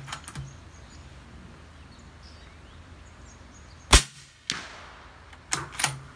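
A single suppressed .308 Winchester rifle shot from a Remington 700 fitted with an AAC 762-SDN-6 suppressor: one sharp report about four seconds in, with a short echoing tail. About half a second later comes a second, smaller crack, the bullet striking the dirt berm downrange, which can sound like a sonic crack. A few clicks follow near the end.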